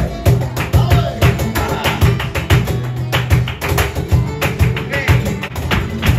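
Live flamenco: a dancer's rapid stamping footwork and rhythmic hand-clapping (palmas) over flamenco guitar.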